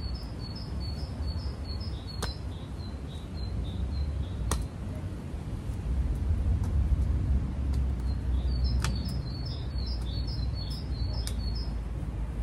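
A garden mattock chopping into soil, a sharp strike every couple of seconds, while a small songbird sings a quick run of repeated chirps near the start and again toward the end. A steady low rumble lies underneath.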